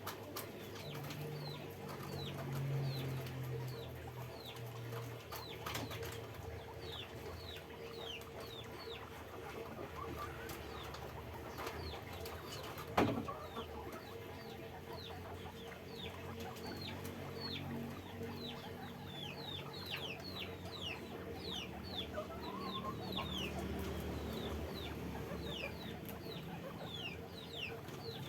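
Guinea pigs squeaking: many short, high squeaks that drop in pitch, coming thicker and faster in the second half. A single sharp knock sounds about halfway through.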